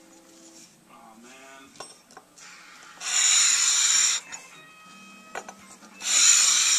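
Metal (brass) Link Tone Master tenor saxophone mouthpiece being sanded flat on abrasive paper over a flat plate during refacing: a one-second run of scraping about 3 seconds in, and another near the end. Soft background music fills the gaps.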